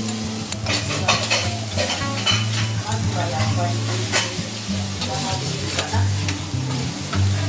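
Chopped garlic frying on a steel teppanyaki griddle: steady sizzling, with a metal spatula and fork clicking and scraping against the hot plate as the garlic is stirred and pressed.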